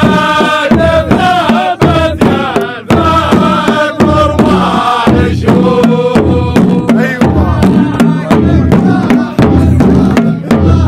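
Large Saudi frame drums (tabl) beaten in a steady heavy rhythm while a group of men chant together in unison: the drum-and-chant music of the ardah, the Saudi sword dance.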